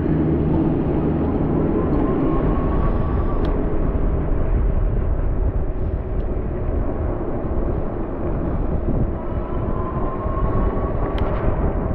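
Steady wind rumble on the microphone with road noise while riding an e-bike, heaviest in the low end. A faint rising whine passes twice, and there are two brief clicks.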